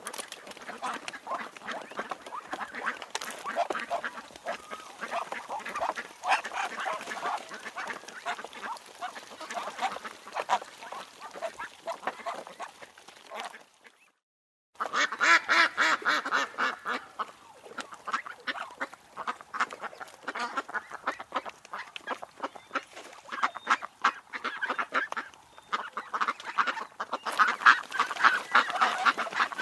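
A flock of ducks quacking, many short calls overlapping in rapid succession. The calls stop for a moment about halfway, then a second group of ducks quacks on, louder toward the end.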